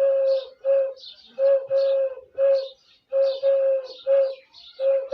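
Dove-like cooing: steady, pure hooting notes repeated in a rhythm of two longer coos and a shorter one, group after group. Faint small-bird chirps sound higher above them.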